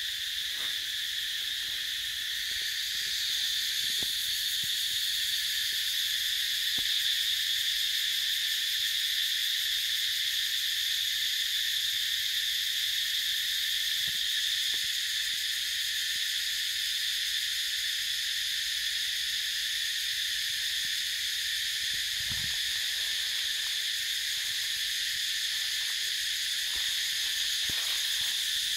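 Steady, high-pitched chorus of insects droning without a break, with a few faint clicks.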